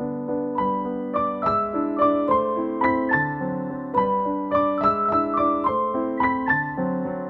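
Gentle background piano music: a soft melody of notes struck at a steady, unhurried pace over sustained chords.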